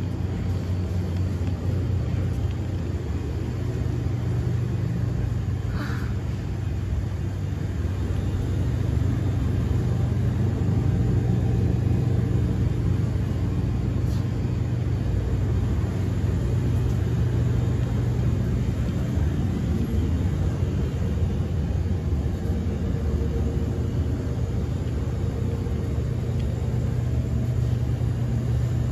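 Steady low hum and rumble of a grocery store's refrigerated display cases and ventilation machinery.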